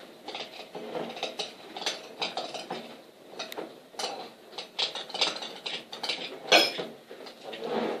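A spoon stirring coloured glue and borax water in a container: irregular clinks and scrapes of the spoon against the container, with one louder sharp sound about six and a half seconds in.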